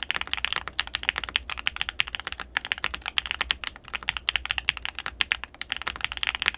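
Fast two-handed typing on a CIDOO QK61 60% mechanical keyboard with a plastic case, gasket mount and stock switches: a dense, irregular run of keystrokes that sound thocky and poppy. Its plate-mounted stabilizers, not yet tuned or relubed, add a very minimal rattle.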